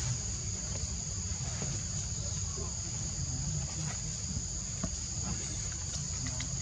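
Steady high-pitched insect chorus, like crickets or cicadas, droning without a break over a low background rumble.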